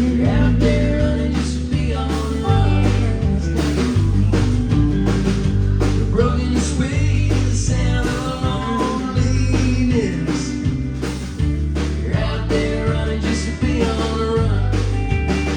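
Live band playing a country-rock song, with guitar over bass notes and a steady beat.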